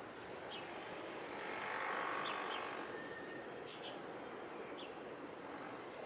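Steady outdoor background noise with a few short, high bird chirps scattered through it. A broad swell of noise rises and fades about two seconds in.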